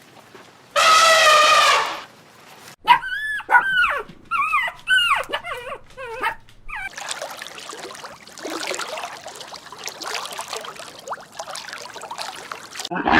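A dog whining and yelping: one drawn-out whine about a second in, then a run of short yelps that rise and fall in pitch, then a longer stretch of softer, rougher noise.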